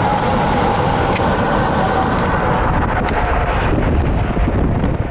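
Wind buffeting the microphone of a camera held out of a moving car's window, mixed with the car's road noise, loud and steady. A faint steady whine fades out about two seconds in.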